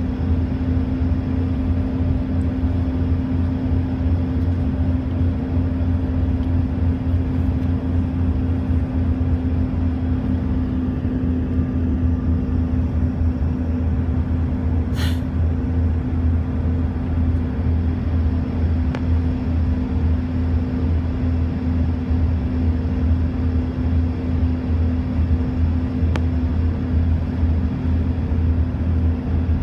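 Steady airliner cabin noise during the descent to landing: a low rumble with an even hum under it. A single brief, sharp sound cuts through about halfway.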